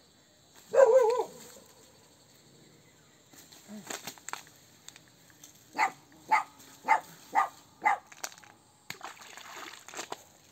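A dog barking, a run of about six barks at roughly two a second, after a short, loud, wavering cry about a second in.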